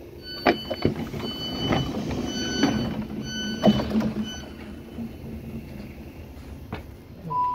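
Electric train's sliding passenger doors opening after the door-open button is pressed: repeated short warning beeps and several clunks as the doors slide apart, settling down after about four seconds. Near the end the first tone of a two-note chime from the train's announcement system begins.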